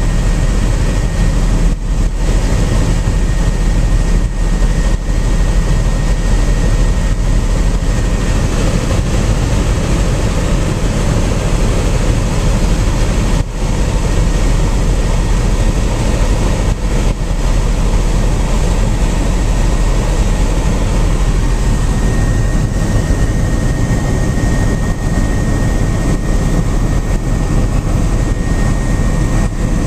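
Helicopter in flight, heard from on board: a loud, steady engine and rotor drone with a thin, steady high whine over it.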